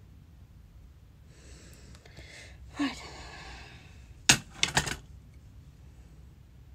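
Makeup items being handled: a short rustle, then a sharp click and a few quick clicks about four seconds in as a small metal-lidded cosmetic jar is picked up and handled.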